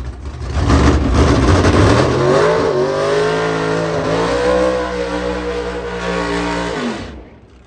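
Super Gas drag car doing a burnout: the engine is revved hard and held at high revs while the rear tires spin. Its pitch climbs for the first couple of seconds, then holds with small wavers, and it cuts off sharply near the end.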